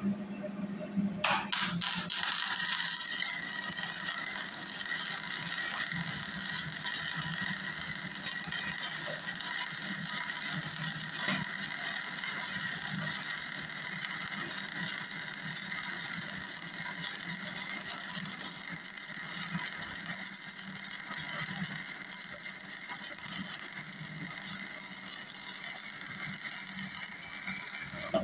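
Hobart Handler 120 wire-feed welder laying a flux-core bead: a few sharp pops about a second in as the arc strikes, then a steady arc crackle for nearly half a minute that stops abruptly near the end. The feed roller tension has just been adjusted, and the welder seems to run a lot better.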